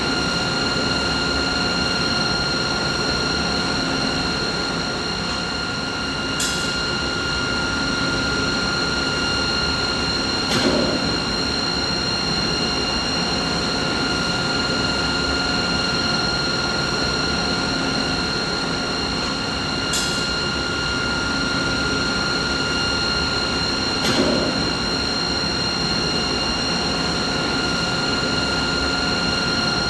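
Steady machinery hum: a rushing noise with several high, steady whining tones over it. Four short clicks break in, the pattern repeating about every fourteen seconds.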